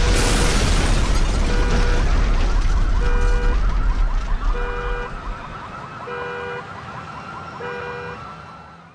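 A sudden loud boom with a deep rumble that dies away over about five seconds, over a two-tone siren alternating a low steady note with a higher warbling one about every second and a half, fading out near the end.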